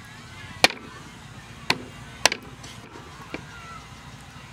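Large kitchen knife chopping raw pig legs on a round wooden chopping block: four sharp chops at uneven intervals, the last one lighter.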